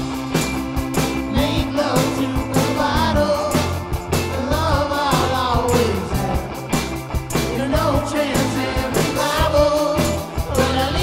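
Indie rock song: a sung vocal line over a full band with a steady drum beat and bass.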